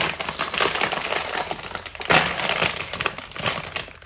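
A crinkly foil snack bag of Pringles Mingles being opened and rustled, making a dense run of crackling.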